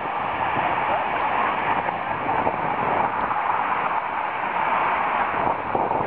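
Large waterfall: water rushing steadily and loudly over the lip of the falls.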